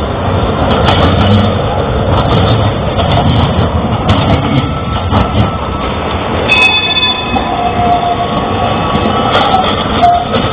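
Tram running along street track: a steady rumble with clicks and knocks of the wheels, and brief high tones in the second half.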